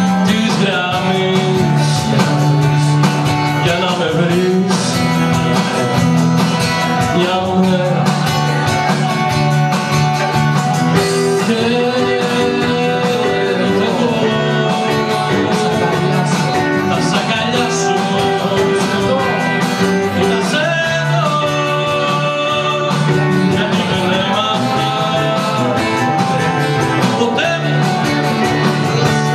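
Live band music with a strummed acoustic guitar and an electric guitar playing a passage without sung words.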